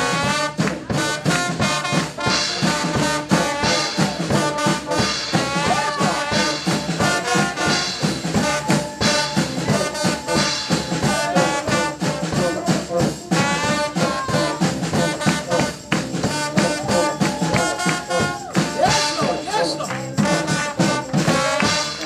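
Lively church praise music with a steady drumbeat and brass-like lead lines.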